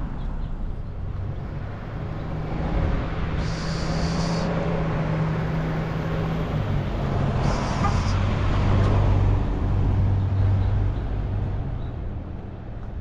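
A motor vehicle's engine running close by, its hum dropping lower about halfway through, with two short bursts of hiss.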